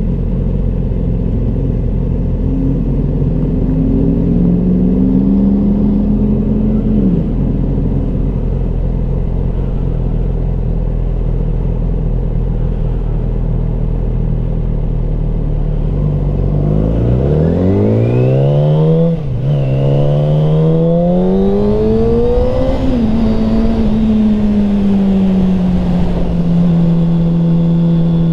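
2007 Yamaha R6's inline-four engine at highway speed: steady cruising, then well past halfway a hard acceleration with the revs climbing steeply, a quick upshift and a second climb, before it settles back to a steady cruise. A low wind rush runs under the engine until the pull.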